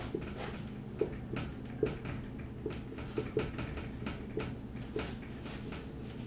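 Dry-erase marker writing on a whiteboard: a string of short, irregular taps and scratches as the strokes go down.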